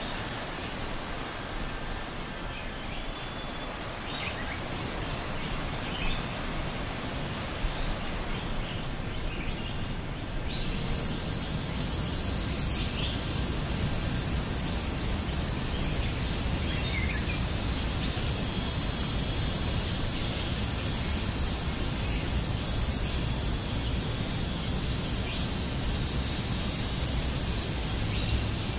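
Steady high-pitched insect drone. About ten seconds in it gives way to a louder, higher insect buzz that holds steady, with a few faint bird chirps over low outdoor background noise.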